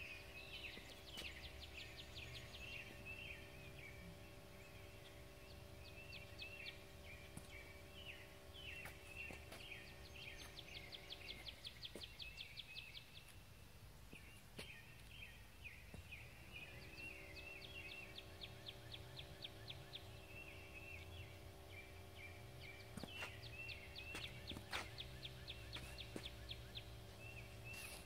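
Faint outdoor ambience: songbirds chirping and trilling over a steady mechanical hum. The hum stops about twelve seconds in and starts again about five seconds later. A few faint clicks are scattered through.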